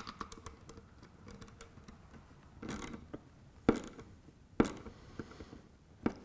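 Nut driver tightening a small metal nut down onto a banana-jack binding post on a plywood panel: light scattered metal clicks and a short rattle, with two sharper clicks about a second apart near the middle.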